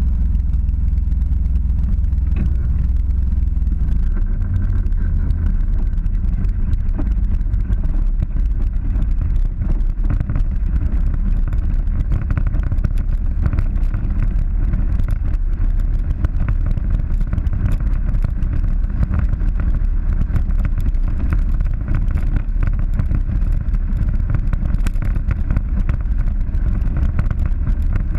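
Polaris 900 side-by-side's engine running steadily while driving over a rough dirt trail, mixed with a heavy low rumble of wind buffeting the microphone. Constant small knocks and rattles from the bumpy track come in from about four seconds in.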